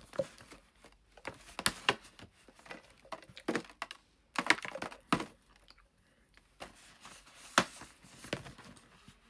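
Irregular close-up crunching and clicking of a chocolate egg with biscuit pieces through it being chewed.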